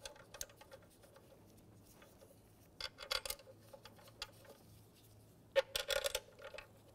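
Faint metallic clicks and light rattling of bolts being started by hand into an ignition coil pack, in two short clusters about three and six seconds in.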